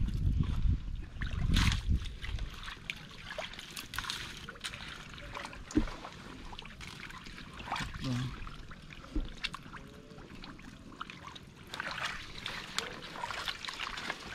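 Shallow muddy water sloshing and small splashes as a person wades and probes a crab burrow with a hooked rod, heavier in the first two seconds, with scattered clicks and one sharp knock about six seconds in.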